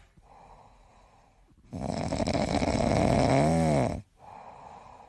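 Snoring: a quiet breath, then a loud rasping snore ending in a rising-and-falling tone, then another quiet breath.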